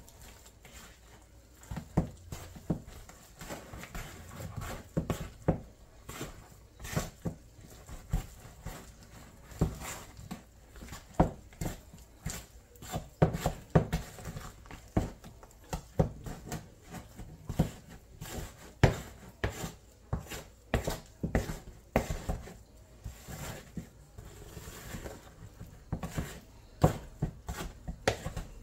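Wooden spoon folding thick fruit cake batter in a plastic mixing bowl: irregular knocks and scrapes of the spoon against the bowl, about one or two a second.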